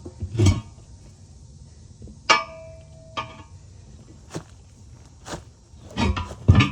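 Metal tire irons clanking against a tractor's steel wheel rim while a tire bead is levered on by hand: a handful of separate knocks, one ringing on for about a second a couple of seconds in, and a quick cluster of knocks near the end.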